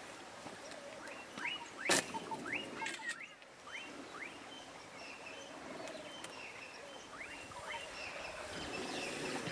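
Birds calling with short, quickly rising chirps, repeated in clusters over a quiet outdoor background. A single sharp click about two seconds in.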